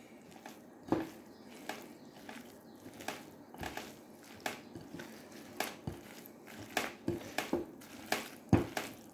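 Bare hands kneading and squeezing raw minced-beef stuffing in a glass bowl, making soft, irregular squishing sounds with scattered small clicks.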